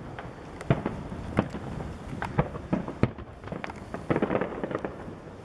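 Aerial fireworks shells bursting in a string of sharp booms, irregularly spaced about half a second to a second apart. A rapid cluster of reports comes about four seconds in.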